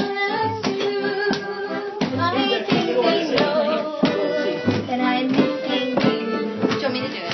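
A girl singing a slow Irish ballad, accompanied by an accordion's held chords and a bodhrán struck about once every two-thirds of a second.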